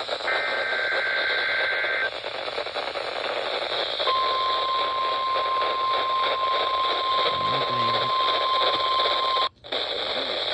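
Weather radio receiver playing a SAME digital data burst, a two-tone warble that ends about two seconds in. After a short gap comes the steady 1050 Hz NOAA Weather Radio warning alarm tone for about five seconds, which cuts off abruptly, all over constant radio static.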